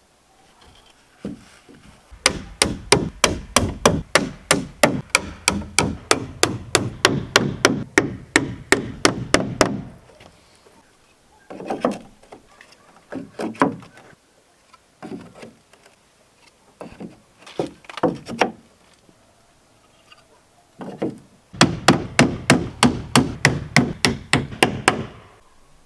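Hammer driving nails into wooden trim boards: two long runs of quick, even blows, about four a second, with shorter scattered groups of knocks between them.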